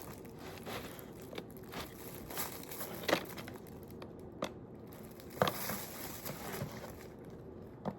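Soft crinkling and scattered crackles of disposable plastic gloves and a bamboo knife cutting and handling a slice of pizza, with a couple of sharper clicks.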